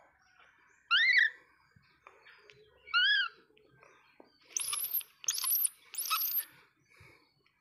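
Baby monkey crying: two short, high squeaks that rise and fall in pitch, about a second and three seconds in, then three longer, shrill screeches in quick succession.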